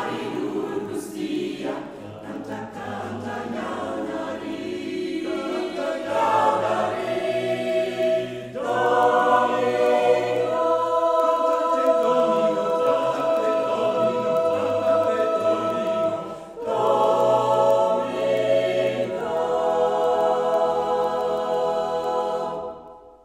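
Mixed choir of women and men singing unaccompanied in long, full held chords, broken by two short breaths. These are the closing chords of the piece, and the last one cuts off just before the end.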